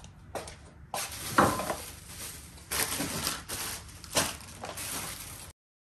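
Plastic grocery bags rustling and crinkling in irregular surges as groceries are handled on a kitchen counter, with a louder clatter about a second and a half in. The sound cuts off abruptly near the end.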